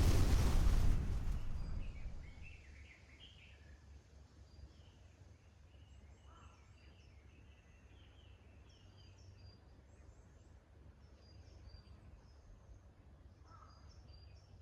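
A loud noisy sound fading away over the first two seconds, then faint birdsong: several small birds chirping in short phrases over a steady low rumble.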